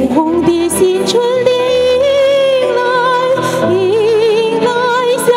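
A woman singing long held notes with vibrato through a handheld microphone over accompanying music, her line rising to a higher note near the end.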